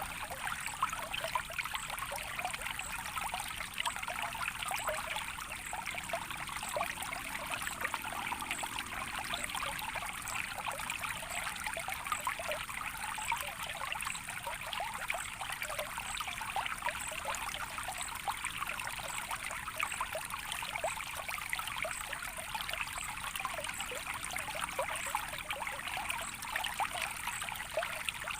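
A small stream of water trickling and babbling steadily, with a dense patter of small splashes. A faint high-pitched pulse repeats about once a second throughout.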